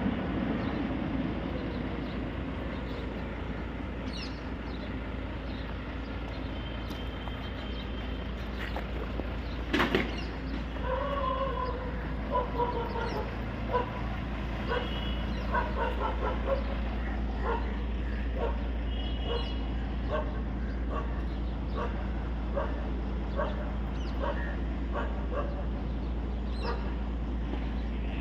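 A dog barking and yipping in short, repeated bursts from about ten seconds in, over a steady low engine drone; a single loud knock comes just before the barking starts.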